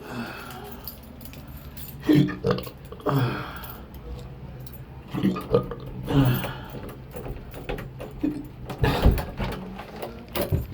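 A man's intractable hiccups: sharp, involuntary gulping hics about every one to two seconds, the constant spasms of a long-running hiccup episode.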